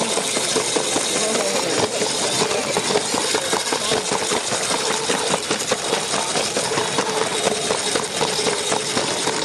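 Lego train's small electric motor running with a steady whine and a fast, dense rattle of its wheels on plastic track, heard close up from on board the moving train.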